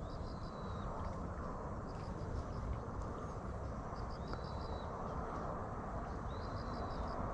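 Outdoor pond-side ambience: a steady low rumble of noise, over which small animals call high-pitched, in quick groups of three or four short chirps, and a brief high whistle that comes three times, at the start, about four seconds in and near the end.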